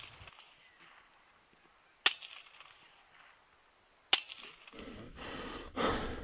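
Two sharp cracks about two seconds apart, followed by a steady rushing hiss.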